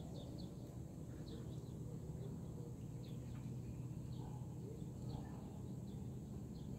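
Faint, scattered bird chirps, short falling notes several times a second, over a steady low hum of outdoor ambience.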